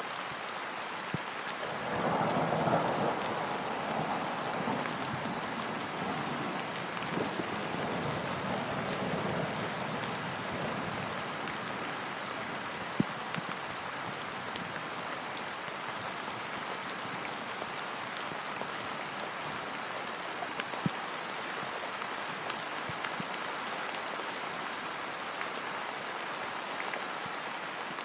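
Steady rain falling on a lake's surface, with a roll of thunder that swells about two seconds in and dies away over the next several seconds. A few sharp single drop ticks stand out.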